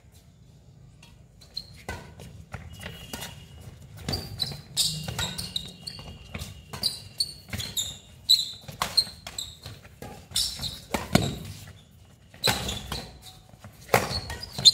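Badminton doubles rally: sharp, irregular racket hits on the shuttlecock mixed with players' quick footsteps on the concrete court, starting about two seconds in.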